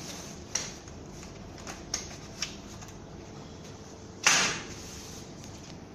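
Crib parts being handled and fitted together during assembly: a few light clicks and taps, then one louder knock with a brief rattle about four seconds in.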